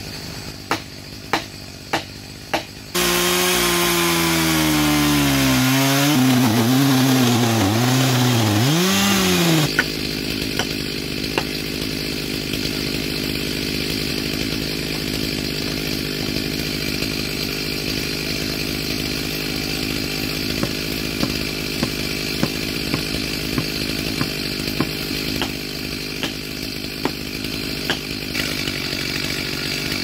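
Stihl MS 462 two-stroke chainsaw idling while a hammer drives steel-struck felling wedges into the back cut of a spruce, with sharp knocks a little under once a second. Several seconds in, a chainsaw runs much louder for about seven seconds, its pitch wavering up and down.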